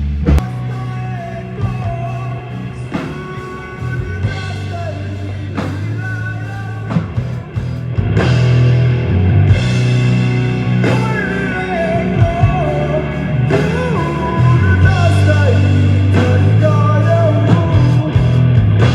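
Live rock band playing a song through a PA system: drum kit, heavy bass, electric guitar and a male singer, the band's stage sound check. The band grows louder and fuller about eight seconds in.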